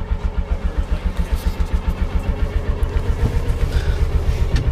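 Kawasaki Mule utility vehicle's engine idling with an even, pulsing beat, just got running again.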